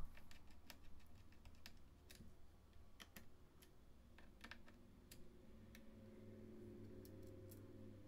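Faint, scattered small clicks of a precision screwdriver turning a screw into a laptop's plastic bottom case, with a faint low hum coming in about halfway through.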